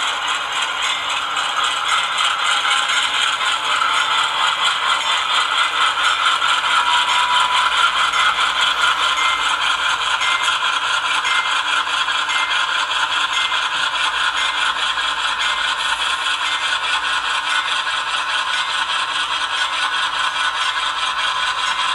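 HO scale GE C44-9W model locomotive running slowly at speed step three, with a steady rattling clatter from its wheels and drive on the track. The ESU LokSound decoder's diesel engine sound plays through its small speaker underneath.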